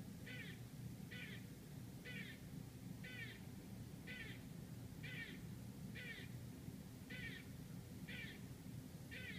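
Eastern gray squirrel barking: a run of short, sharp calls repeated evenly about once a second, over a low steady hum.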